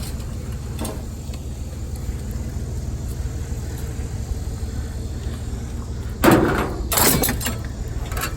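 A vehicle engine idling steadily, then about six seconds in a sudden loud clatter of something being handled or dropped, lasting about a second, with more clatter near the end.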